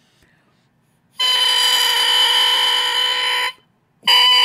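A handmade oboe reed crowing, blown on its own off the instrument after its back has been scraped: one steady crow of a little over two seconds starting about a second in, then a short break and a second crow starting near the end. The maker calls the crow good.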